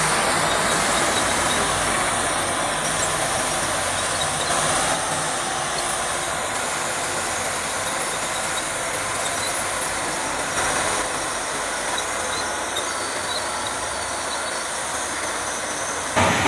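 Diesel engines of several crawler bulldozers and a loaded log truck running steadily under load, a dense, even machinery noise. It cuts off abruptly near the end.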